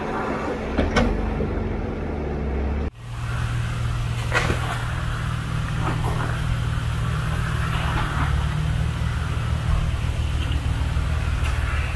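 A 4x4's engine running steadily at low trail speed, with a few short knocks. About three seconds in the sound breaks off abruptly and picks up again with a slightly different engine note.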